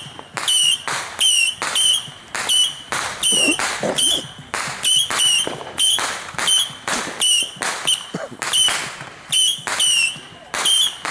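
Ground-launched firework repeater firing shot after shot, about two sharp cracks a second, each with a brief high whistle, pausing briefly near the end before firing again.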